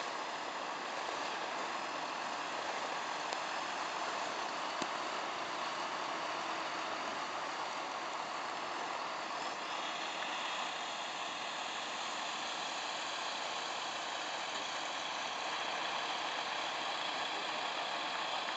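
Steady running of vehicle engines, with no separate knocks or revs. A few faint high steady tones come in about halfway through.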